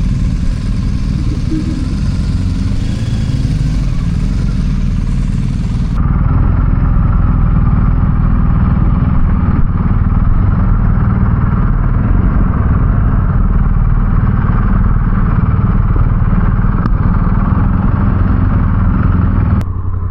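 BMW R 1250 GS motorcycle's boxer-twin engine running steadily at low speed while being manoeuvred. The sound changes abruptly about six seconds in.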